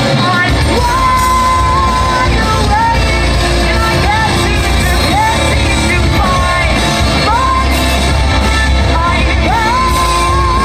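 Metalcore band playing live: distorted guitars, bass and drums under a sung vocal that slides up into long held notes about a second in and again near the end.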